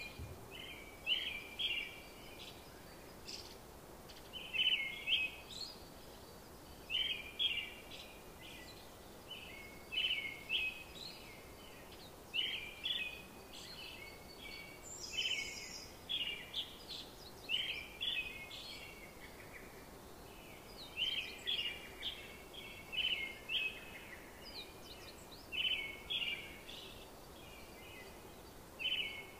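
Small birds chirping: short, high chirps in little clusters every second or two, over a faint steady background hiss.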